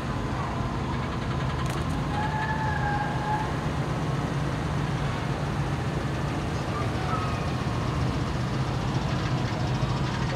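A Chevrolet Silverado pickup towing an enclosed cargo trailer drives slowly past, its engine running with a low, steady rumble.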